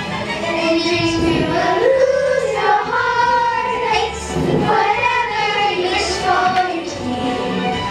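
A song sung by children's voices over musical accompaniment, the melody carried steadily through.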